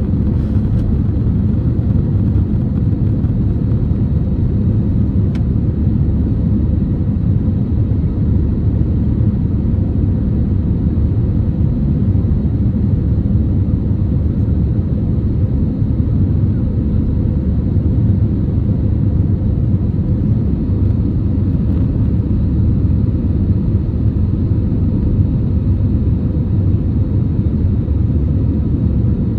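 Jet airliner cabin noise heard from a window seat over the wing, shortly after takeoff: the engines and rushing airflow make a loud, steady low rumble that does not change.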